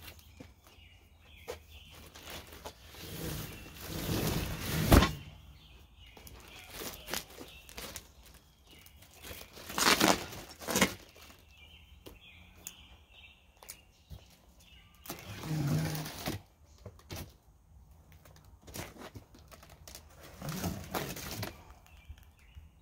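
Handling noise from a heavy cardboard box holding a floor jack being slid across a pickup truck bed and carried off: scattered scrapes, knocks and footsteps, with one sharp thud about five seconds in.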